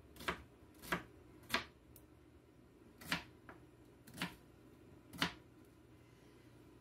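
A knife chopping on a cutting board: six or seven sharp, irregularly spaced knocks, the last about five seconds in.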